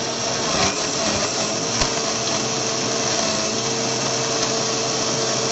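Electric mixer grinder running steadily at full speed, blending yogurt and mango in its jar: a steady motor whine over the churning liquid.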